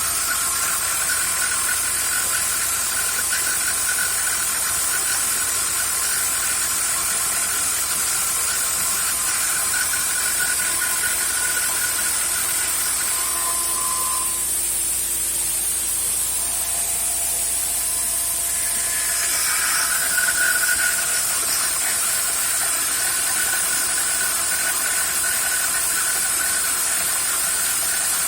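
CNC spindle running with a 3-flute end mill cutting a part: a steady machining whine over a high hiss. About halfway through the cutting tones fade for several seconds, then come back.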